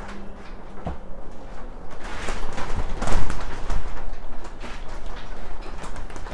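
Small pieces of pine being handled and fitted against a wooden frame: irregular rubbing and light knocks of wood on wood, busiest and loudest in the middle.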